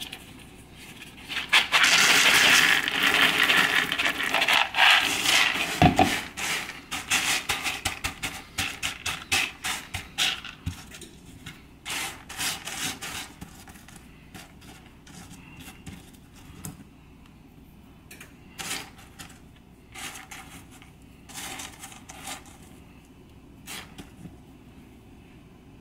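Dry pinto beans poured from a plastic bowl onto a cutting mat: a dense rattle lasting about four seconds, ending in a single knock. Then hands spreading and sifting through the beans to pick out rocks, scattered clicking and rustling that thins out toward the end.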